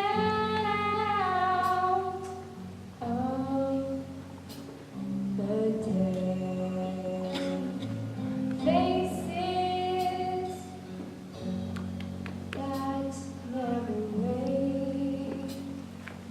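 A woman singing a slow song in several long held phrases over a steady instrumental accompaniment.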